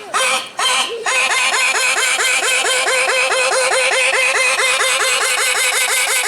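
Comic sneeze sound effect played through a sound suit's speakers. Two single sneezes, then from about a second in a fast unbroken run of them, roughly seven or eight a second.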